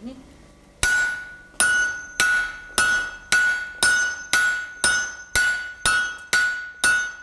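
Smith-and-striker forging: a hand hammer and a sledgehammer taking turns striking hot steel on an anvil, about a dozen blows at roughly two a second, starting about a second in. Each blow leaves a bright ringing note from the anvil.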